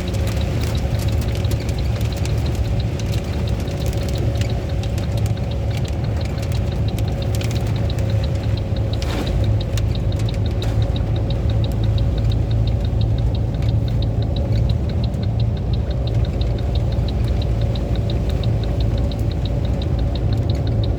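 Hailstones striking a vehicle's body as many sharp clicks, over a steadily idling engine. The clicks are densest in the first half and thin out later.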